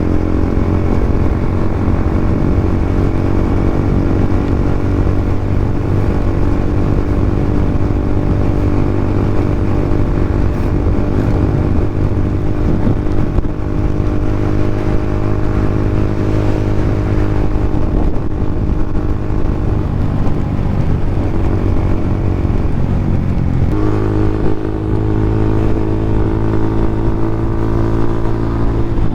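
2015 Yamaha Sniper 150's single-cylinder four-stroke engine running through an open EXOS R6 exhaust pipe with no silencer, holding a steady note. Its note changes abruptly about 24 seconds in.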